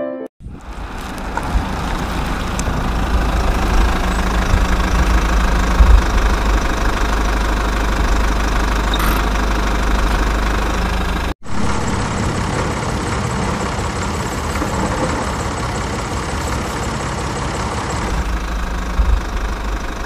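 Engine running steadily with a deep rumble, like heavy machinery idling. It cuts out for an instant about eleven seconds in, then carries on.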